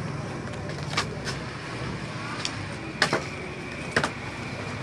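The excess x-ray-film cover is being trimmed by hand at a book's edges: a handful of sharp clicks, the loudest about three seconds in. A steady low hum runs underneath.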